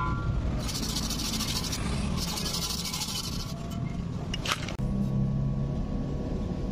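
Background music: a hissing swell through the first half, a short sharp hit about four and a half seconds in, then a low steady drone.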